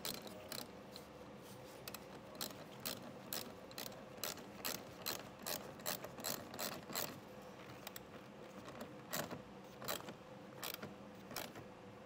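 Ratchet wrench with a 10 mm socket clicking through short back-and-forth strokes, a few clicks a second with brief pauses, as it tightens the nut on a car battery's positive terminal post.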